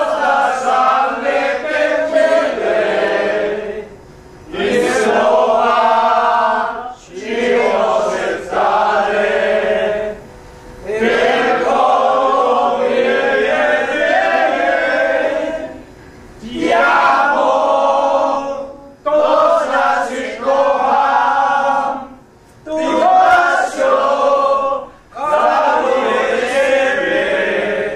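A group of men singing a Polish song together without accompaniment, in phrases a few seconds long with short breaks between them.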